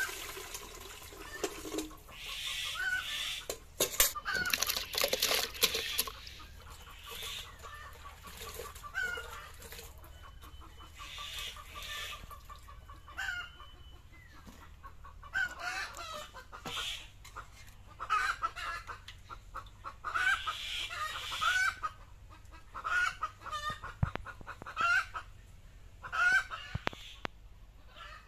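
Chickens clucking on and off. Underneath, water splashes from a hand pump into a metal bucket, with hands sloshing in the water.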